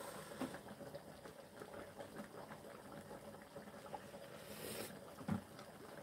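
Thick vegetable porridge bubbling faintly in a pot on a portable gas burner, with many small scattered pops. About three quarters of the way through there is a short breathy sound as the hot porridge is tasted from a wooden spoon, followed by a soft knock.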